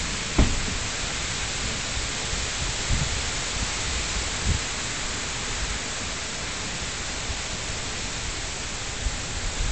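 Heavy rain pouring down in a thunderstorm as a steady, even hiss, with a few brief low thumps from wind buffeting the phone's microphone.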